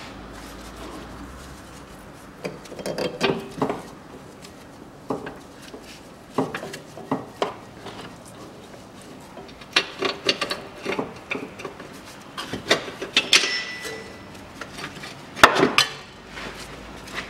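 Irregular metallic clinks, knocks and scraping as the rear lower engine mount of a Chevrolet Cruze is wiggled by hand and pulled free of its subframe bracket. The clatter comes in several short clusters, the loudest knock near the end as the mount comes out.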